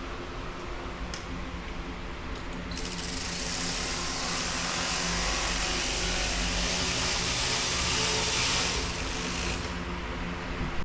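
Workshop machinery running with a steady hum. About three seconds in, a loud steady hiss joins it and stops again about a second before the end, and then the sound cuts off abruptly.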